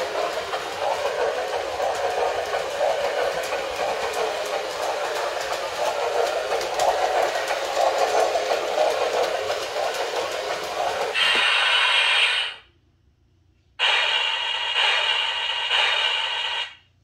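New Bright Holiday Express toy train running fast around its track: a steady motor drone with fine clicking from the wheels. About eleven seconds in, a brighter hissing sound with a high ringing tone comes in, drops out for about a second, and stops just before the end.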